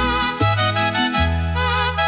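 Mariachi-style instrumental music: a melody with vibrato over deep bass notes that change every half second or so.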